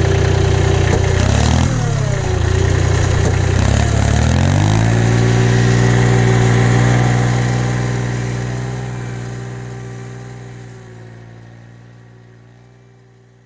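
Tractor engine running, its pitch dipping and rising in the first few seconds and then holding steady at higher revs, before fading away steadily over the second half.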